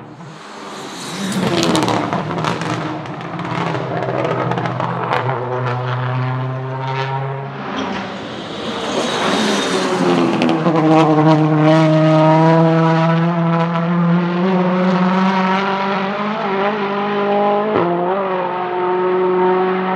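Volvo S60 Polestar TC1 race car's turbocharged 1.6-litre four-cylinder engine at racing speed, passing loudly, its note climbing and dropping through gear changes. A single sharp crack sounds near the end.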